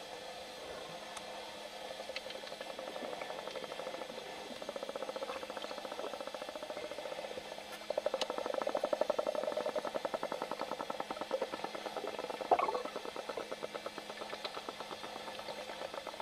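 Bottlenose dolphins heard underwater: rapid click trains that run together into a buzzing pulse, louder and faster from about halfway, with one short, louder squawk-like call a few seconds before the end.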